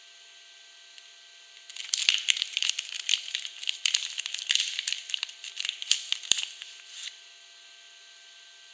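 Soap packaging being unwrapped by hand: about five seconds of dense crackling and tearing of the wrapper, starting near two seconds in and stopping abruptly about seven seconds in.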